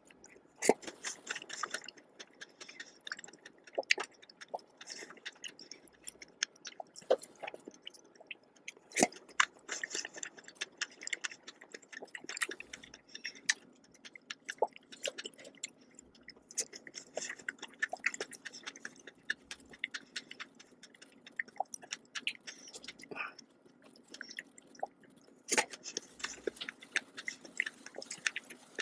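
Close-miked chewing of a fresh strawberry and whipped-cream dessert: irregular wet smacks and clicks of the mouth, with short pauses between bites.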